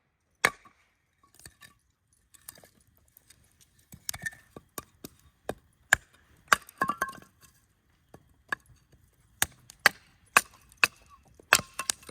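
Irregular sharp taps, knocks and clinks of food preparation: a knife and utensils striking a cutting board and dishes, a few strokes ringing briefly.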